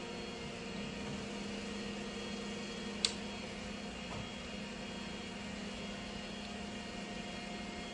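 Steady machine hum with a few held tones, broken once by a single sharp click about three seconds in.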